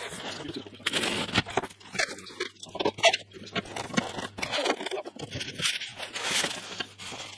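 Cardboard box flaps and polystyrene foam packing being handled and pulled apart: an irregular run of scraping, rubbing and crunching noises.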